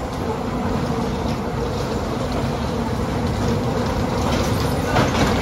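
Bumper cars running around the rink: a steady, even rumble of the cars rolling over the metal floor, with one knock near the end.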